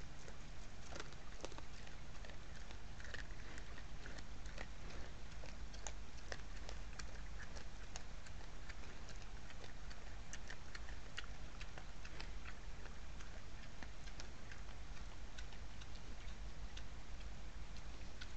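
Wild boar rooting and feeding in leaf litter: irregular small crackles, clicks and snaps from its snout and mouth working the ground, over a steady low hum.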